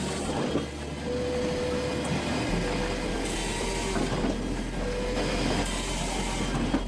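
Hakki Pilke 2X firewood processor running, a steady mechanical hum with a few sharp knocks, one about half a second in and one near the end.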